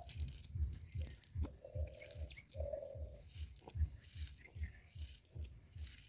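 Cast net being handled and picked through by hand, with scattered small clicks and crinkling. A low rhythmic thudding, three to four beats a second, runs underneath, and two short steady calls come in about two and three seconds in.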